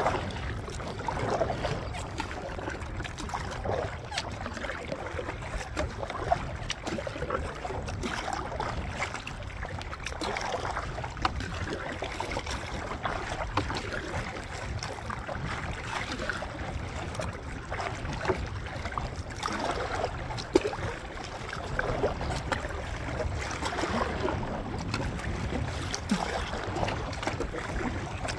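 Water splashing and lapping against the plastic hull of an 11'7" Pelican sit-on-top kayak as it is paddled through choppy water, with a low rumble of wind on the microphone.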